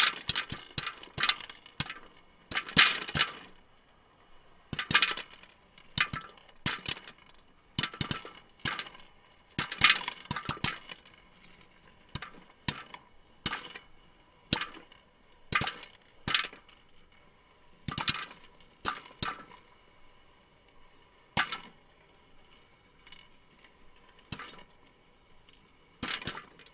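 Popcorn kernels popping in a microwave: sharp separate pops, in quick clusters at first, then thinning to one every second or so as the batch nears the end of popping. A faint steady hum runs underneath.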